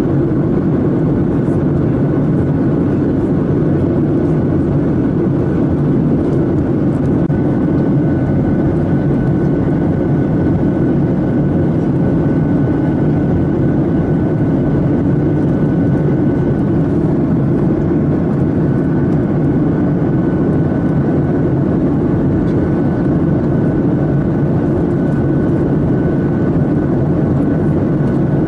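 Steady drone of an aircraft in flight, heavy in the low range, with a faint high whine held on one pitch.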